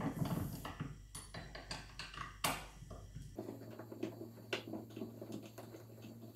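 Light metallic clicks and taps of an Allen key turning a screw in a small die-cast aluminium bench vise, with the steel parts knocking together as they are handled. The loudest tap comes about two and a half seconds in.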